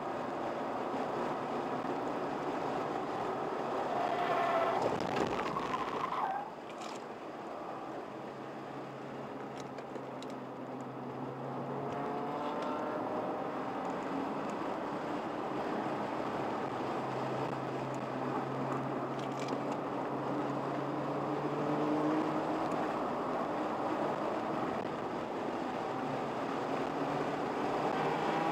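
Car engine heard from inside the cabin at track speed, its pitch climbing under acceleration several times and falling away suddenly about six seconds in as the throttle is lifted, over steady wind and tyre noise.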